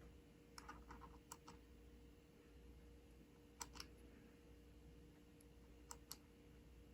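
Faint small switch clicks over near silence, mostly in quick pairs: a few near the start, two about halfway and two near the end. These are the on-off and momentary switches in a 3D-printed housing being worked.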